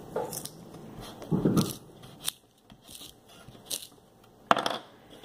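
Scattered small clicks and crackles of a wooden pencil and its pointed tip being pressed into a pink eraser by hand, with a sharper crack about four and a half seconds in.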